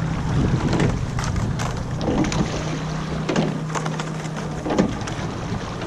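Wind on the coxswain's microphone and water around a rowing eight at a standstill, with a few faint knocks and a low steady hum in the middle.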